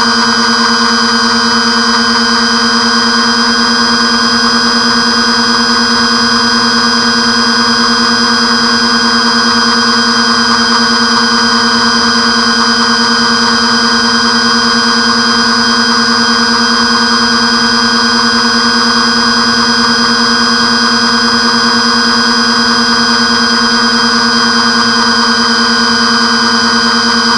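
The RC airplane's twin motors and propellers run at a steady cruise throttle, heard close up from the camera mounted on the airframe. It is a loud, even whine whose pitch holds constant, over a rush of air.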